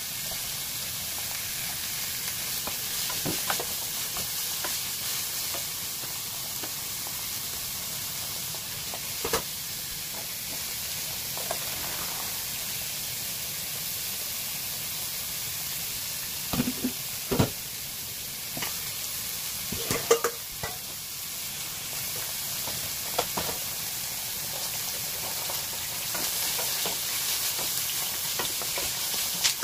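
Eggs frying in oil in a cast-iron skillet: a steady sizzle. It is broken by scattered knocks and clanks of cookware, with a cluster of them a little after halfway.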